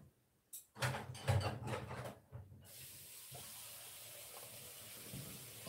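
A man drinking from a mug, with soft sips and swallows in the first half. From about halfway, a steady faint hiss takes over.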